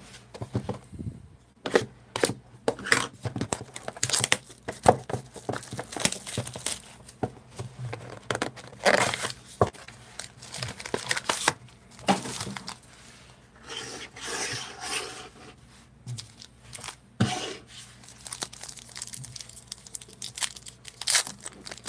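Plastic shrink wrap being torn and crumpled off a trading-card hobby box, then the cardboard box opened and its foil card packs handled and a pack wrapper torn: a run of short crinkling rips and rustles.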